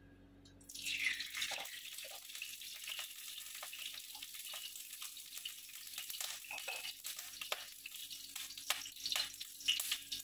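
Ghee sizzling in a hot kadhai. A sharp hiss starts about a second in as the first spoonful hits the hot metal, then settles into a steady sizzle with scattered crackles and pops.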